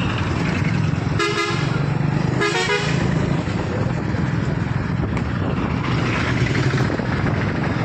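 Two short vehicle horn toots, about a second apart, the second one wavering in pitch, over a steady low engine rumble and outdoor noise.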